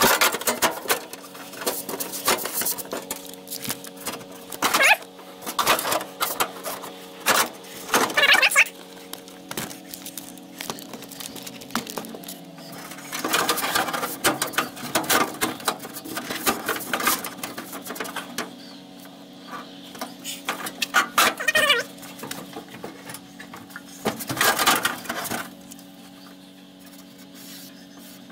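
Sheet-metal floor patch panel being shifted and pressed into place in a truck cab floor: irregular metal clanks, rattles and scrapes, with a faint steady hum underneath.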